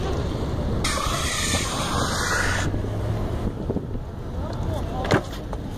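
Longboard wheels rolling over rough concrete with a steady low rumble, and wind buffeting the microphone. A louder hiss comes from about one second to nearly three seconds in, and there is one short knock near the end.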